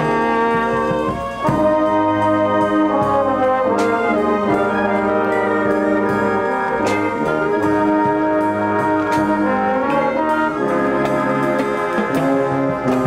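A fire-department brass band playing, trumpets and trombones in sustained chords with scattered drum strikes; the music dips briefly a little over a second in, then carries on.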